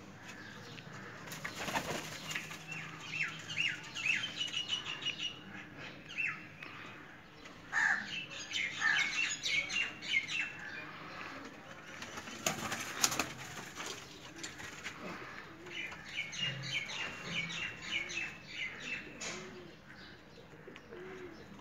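White high-flyer pigeons flapping their wings, with two loud flurries of wingbeats about two seconds in and again near the middle. Between them come many short high bird chirps and, later on, a few soft low pigeon coos.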